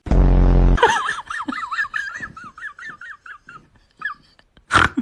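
A dog vocalising in a quick run of short, wavering whines, about four or five a second. It starts right after a loud low buzzing sound lasting under a second, and a sharp knock comes near the end.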